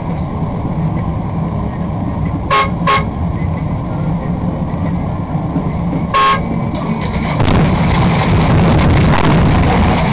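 Bus engine running with road noise inside the cab, broken by two short horn toots about two and a half seconds in and a third, slightly longer toot about six seconds in. From about seven and a half seconds a rushing road and wind noise grows louder.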